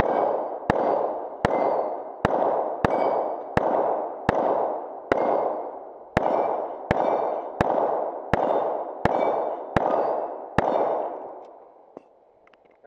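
Pistol fired in a steady string of about fifteen shots, roughly one every 0.7 seconds, each shot trailing a ringing echo. There is a slightly longer pause about five seconds in, and the last shot comes about ten and a half seconds in, its echo fading out.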